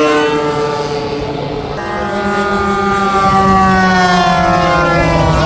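Radio-controlled model plane motors whining in flight, their pitch sliding slowly down as the planes pass. A second, lower-pitched motor comes in about two seconds in.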